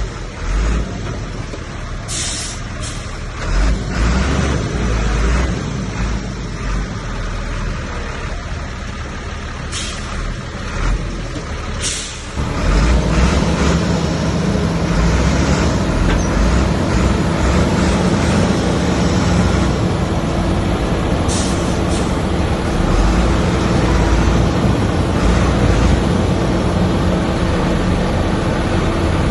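Heavy diesel earthmoving machinery working, its engine running loud and steady and picking up about twelve seconds in, with a few sharp metallic clanks.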